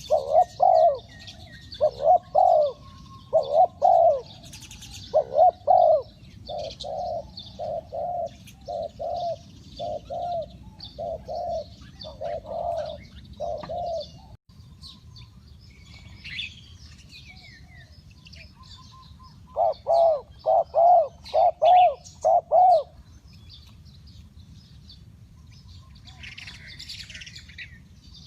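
Spotted dove cooing: a long run of low, repeated coo notes at about two a second, a pause, then a shorter run of about six coos. Small birds chirp faintly in the background.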